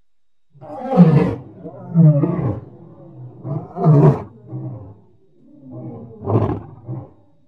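Lion roar sound effect presented as the extinct Mosbach lion: a run of deep roars and grunts starting about half a second in. The first roar is the loudest, and louder calls come every second or two with shorter grunts between.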